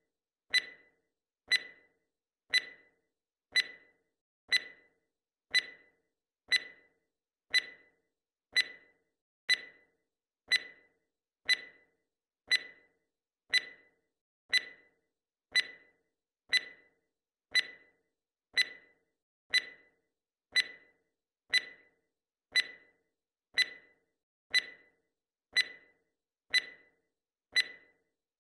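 Clock-tick sound effect: one short, sharp tick every second, each dying away quickly, in a steady even rhythm.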